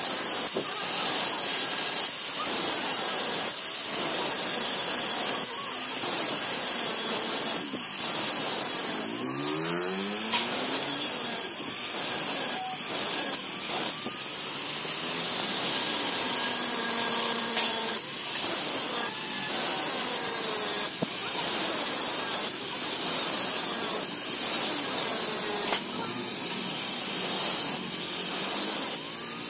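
Angle grinder with a cutting disc cutting into the steel of a Bajaj auto rickshaw's magneto flywheel: a steady grinding hiss with a high whine that falls in pitch again and again.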